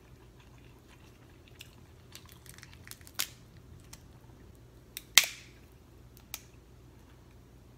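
Snow crab legs being snapped and cracked open by hand. Small crackles of shell come first, then two sharp cracks about three and five seconds in, the second the loudest, and a lighter click after.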